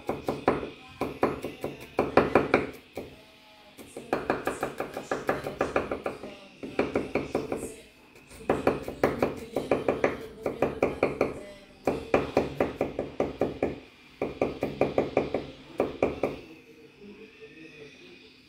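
Knife slicing garlic cloves on a wooden cutting board: runs of quick, even taps, about five a second, in bursts of a few seconds with short pauses between them, stopping a couple of seconds before the end.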